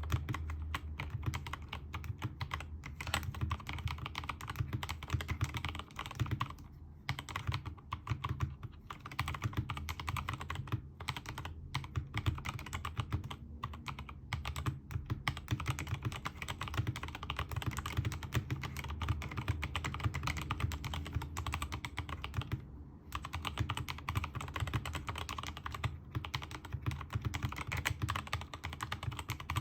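Continuous typing on a Keychron K2 v2 mechanical keyboard with Gazzew Boba U4T tactile switches lubed with Krytox 205g0, PBT XDA-profile keycaps and a silicone-filled aluminium case: a dense run of keystrokes, with brief pauses about seven seconds in and again about twenty-three seconds in.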